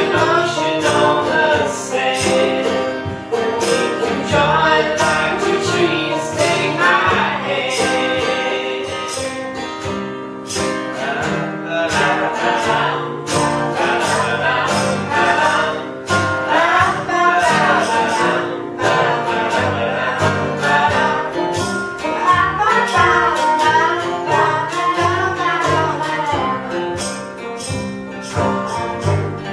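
Acoustic folk band playing, with banjo, acoustic guitar and upright bass picked to a steady beat, and voices singing over them.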